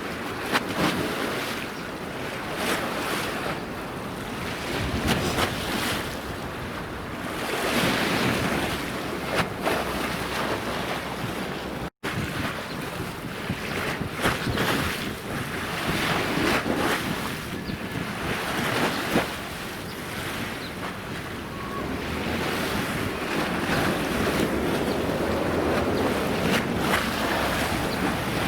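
Wind buffeting the microphone over the wash of the sea, swelling and easing in gusts. The sound cuts out for an instant about twelve seconds in.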